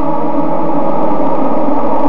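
Dense, loud cluster of synthesized drones from the DIN Is Noise software synthesizer: many sustained tones on B-flat, D-flat, E-flat, E, F and A-flat sound together, with a few of them sliding slightly in pitch.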